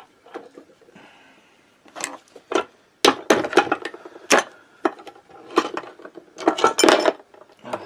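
Sharp metallic clicks and knocks as the aluminium crankcase halves of a Minarelli AM6 two-stroke engine are worked apart by hand. The knocks begin about two seconds in and come thick and fast from about three seconds until near the end.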